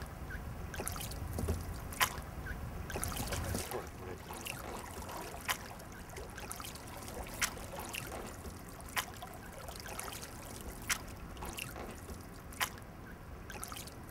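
A rowboat being rowed: a short knock from the oars about every two seconds, with water trickling off the blades.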